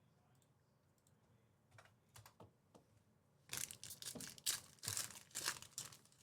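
Trading-card pack wrapper being handled and torn open: a few light clicks, then from about halfway a quick run of sharp crinkling and tearing rustles.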